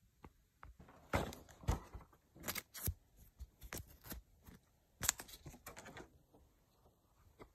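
Handling noise: irregular clicks, taps and short rustling scrapes as things are picked up and moved about.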